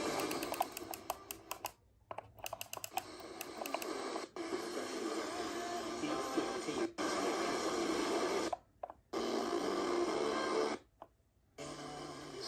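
Alarm clock radio's speaker playing an FM broadcast, mostly music, with rapid clicking over the first three seconds. The sound cuts out briefly a few times.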